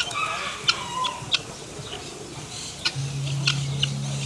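Chickens clucking in short, sharp, scattered clucks, with a steady low hum coming in about three seconds in.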